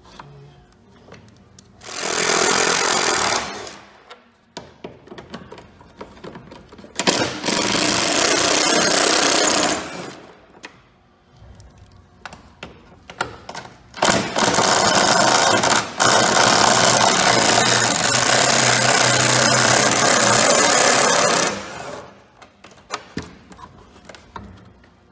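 A handheld power tool runs in three bursts: a short one about two seconds in, a second of about three seconds, and a long one of about seven seconds from the middle on, working on the truck's fasteners. Small clicks and knocks of hand work come between the bursts.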